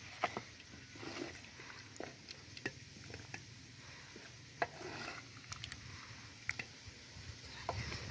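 Wooden spoon stirring and scraping in a large aluminium pot of stew, with scattered light clicks and knocks as the stew is ladled out into plastic plates.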